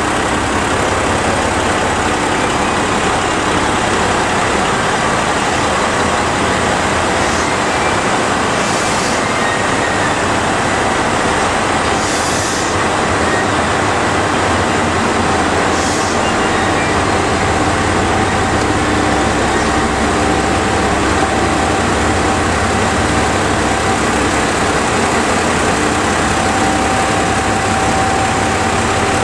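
JR Shikoku 2700 series diesel railcars running steadily, with a dense, even engine and machinery sound. Three short hisses come through in the middle.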